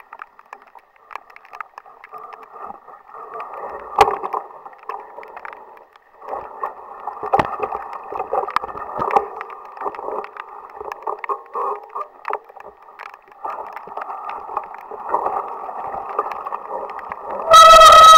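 Mountain bike rattling and knocking as it descends a wet, muddy singletrack, heard through a cheap action camera's muffled microphone, with one sharp loud knock about four seconds in. Near the end comes a brief, very loud, distorted pitched sound.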